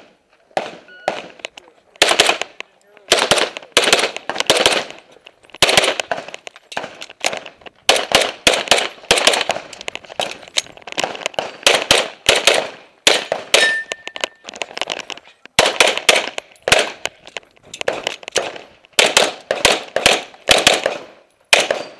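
Handgun fired rapidly in pairs and short strings, with brief pauses between strings, as the shooter runs a timed practical-shooting course of fire.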